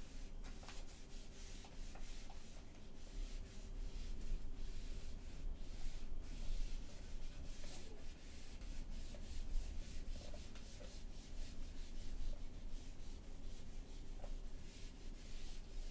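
Whiteboard duster being rubbed across a whiteboard: a long run of irregular scrubbing strokes as the writing is wiped off.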